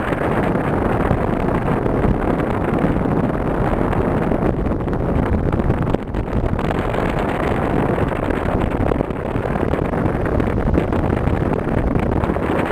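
Steady wind rush and low rumble from riding in a moving vehicle, wind buffeting the microphone over the vehicle's running noise.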